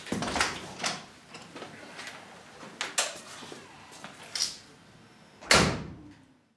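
Irregular knocks and clicks of hard objects being handled, ending with one louder bang about five and a half seconds in that rings briefly and dies away.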